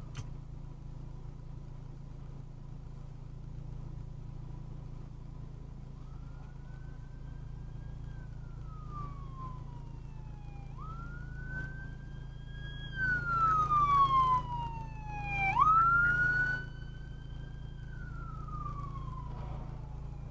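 Police car siren wailing, its pitch sweeping slowly up and down in long cycles as it approaches. It gets louder and harsher for a few seconds about two-thirds of the way through.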